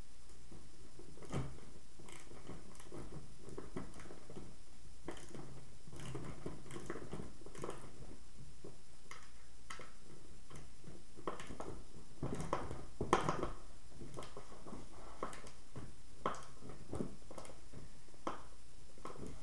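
Scattered light clicks, taps and knocks of skateboard hardware and tools being handled while bolting trucks onto a deck, with a brief louder clatter about two-thirds of the way through.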